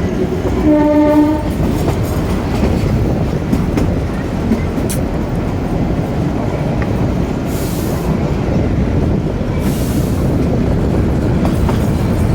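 Narrow-gauge toy train running with a steady rumble of wheels and carriages. The locomotive horn gives one short blast about half a second in.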